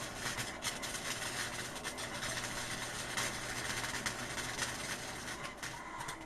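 MIG welder arc crackling and sputtering unevenly while tack-welding steel spring perches onto a Jeep CJ7 axle housing, over a steady low hum. The owner says the wire seems to feed through poorly and the welds are coming out lumpy.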